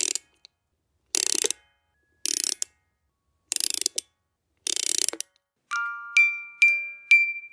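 Podcast transition jingle: five short noisy bursts about a second apart, then a melody of bell-like chiming notes starting near the end.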